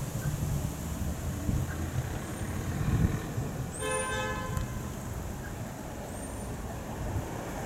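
A vehicle horn gives one short toot about four seconds in, over a steady low rumble of wind on the microphone.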